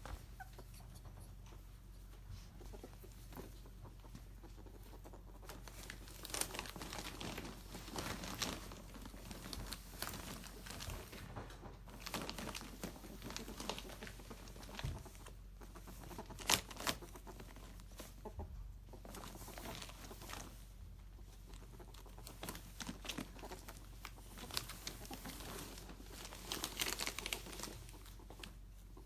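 A ferret scrambling about in a crinkly play tunnel: irregular crinkling and rustling with small scrapes and knocks. It starts a few seconds in and comes in bursts, with one sharper knock about halfway through.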